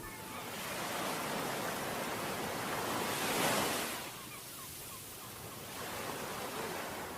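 Sea waves washing onto a beach with wind blowing, swelling to a peak about three and a half seconds in, then easing before building again.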